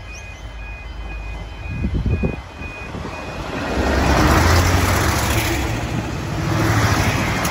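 V/Line Sprinter diesel railcars passing close at speed: a deep engine rumble and wheel-on-rail rush swell from about three and a half seconds in and surge again as further cars go by. Near the start, evenly repeating electronic warning beeps, the pedestrian crossing's alarm, sound faintly.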